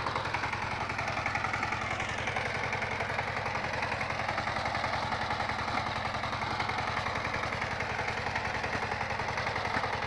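Single-cylinder diesel engine of a two-wheel walking tractor running steadily under load while it pulls a disc plough through soil, with an even, rapid beat.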